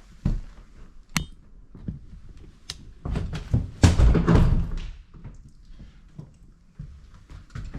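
Scattered knocks and thuds, with a sharp click about a second in and a louder run of thuds and low rumbling about three to five seconds in.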